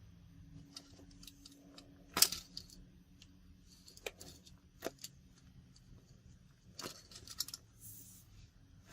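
Faint handling noise from squishy toys and their plastic packaging: scattered light clicks and short rustles, the sharpest click about two seconds in and a quick cluster near the end.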